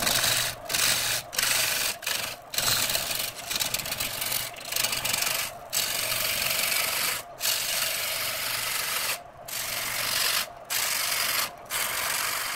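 A turning tool cutting into a spinning redwood blank on a wood lathe gives a harsh, steady scraping hiss of shavings being cut. It breaks off briefly every second or two as the cut pauses, over a low steady hum from the lathe.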